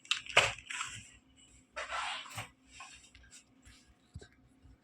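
A few scattered clicks from a computer keyboard and mouse, with a short rustle about two seconds in.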